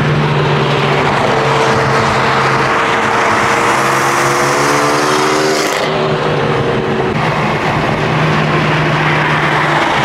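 BMW M4 engine note at freeway speed, under hard acceleration: its pitch rises steadily for about four seconds, then drops back to a steady drone. Road and wind noise run underneath.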